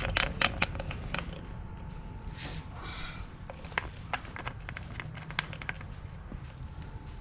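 Scattered clicks, light taps and crackling, as of objects being handled, over a low steady hum.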